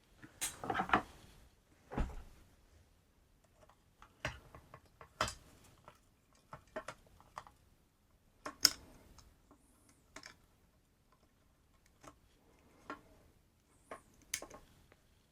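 Scattered small clicks and taps of tools and small parts being handled on a workbench, about a dozen irregular knocks with quiet gaps between them.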